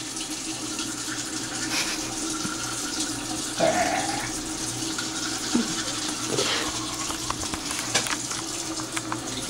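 Toothbrush scrubbing teeth over a bathroom sink, with a tap running steadily. A short voiced sound from the brusher comes about three and a half seconds in.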